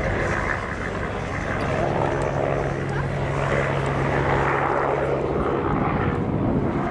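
Agusta A109BA twin-engine military helicopter flying a display, its rotor and turbines making a steady, loud drone with a low hum that fades about five and a half seconds in.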